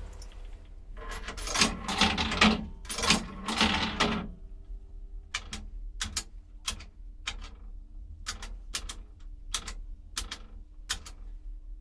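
Payphone with coins being inserted: a run of clattering metal rattles for about four seconds. Then about a dozen separate sharp clicks of its keypad buttons being pushed, roughly two a second, over a faint steady low hum.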